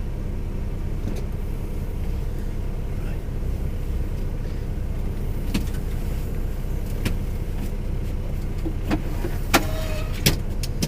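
A steady low hum inside a lorry cab, with several sharp clicks and knocks from the second half onward as things are handled; the loudest two come near the end.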